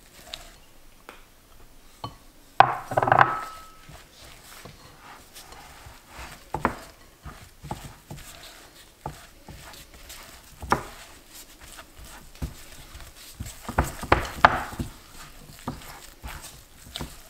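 Silicone spatula working a thick ricotta, egg yolk and semolina dough in a glass bowl: scattered scrapes and soft knocks against the glass, with a louder stretch about three seconds in and another near the end.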